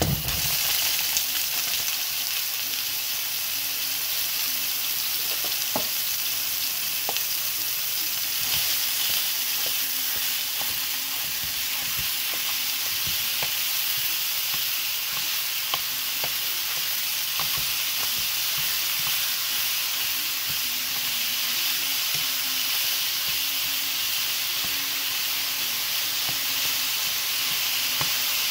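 Ground turkey sizzling in hot oil in a nonstick frying pan. The sizzle starts suddenly as the meat drops into the pan and then holds steady, with scattered light clicks and scrapes from a plastic spatula breaking up and stirring the meat.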